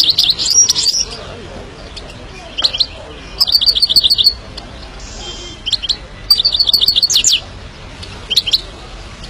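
Himalayan goldfinch singing: about six bursts of quick, high twittering notes, each half a second to a second long, with short pauses between them.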